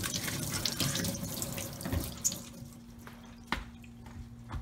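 Pull-down kitchen faucet sprayer running onto a shoe insole rinsed by hand in a stainless steel sink, shut off about two seconds in. A low steady hum and a single sharp click follow.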